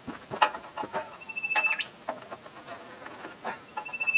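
A high animal call, a held whistle-like note ending in a quick flick of pitch, heard twice about two and a half seconds apart, over scattered light clicks and knocks of hand work on metal.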